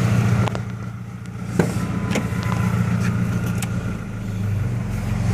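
Pickup truck engine idling steadily through a Flowmaster 40 series muffler, with a few sharp clicks from the light switch being worked. The idle grows a little louder near the end.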